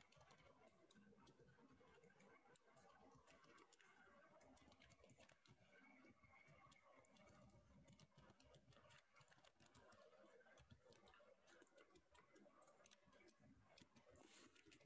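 Near silence: faint room tone with scattered faint clicks.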